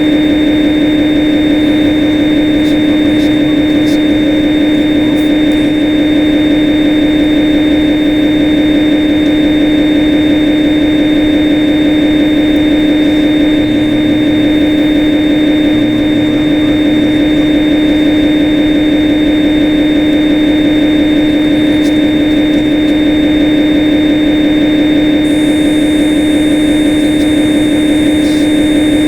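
Steady, unchanging machine drone of a simulated CNC lathe's sound effect in the Swansoft CNC simulator: a constant hum with a whine above it and a hiss.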